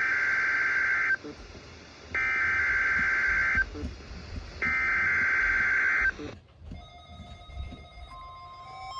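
Emergency Alert System SAME header: three identical harsh, buzzy digital data bursts of about a second and a half each, about a second apart, sent over NOAA Weather Radio to open a Required Weekly Test and heard through a weather radio's speaker. Quiet hiss follows, and near the end a faint steady tone begins.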